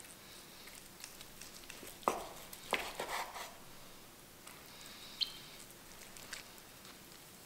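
Chef's knife slicing tender corned beef on a wooden cutting board: soft wet cuts with a few sharp taps of the blade on the board, the loudest about two to three and a half seconds in and one more tap a little past five seconds.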